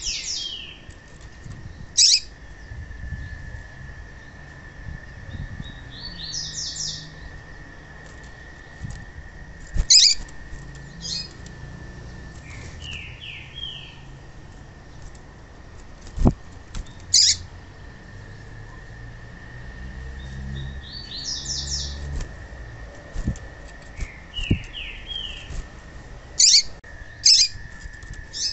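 Female papa-capim (yellow-bellied seedeater) calling: clusters of quick, short, descending high chirps every few seconds, mixed with a few sharp single chips. A faint steady high tone runs underneath, and there is one knock about midway.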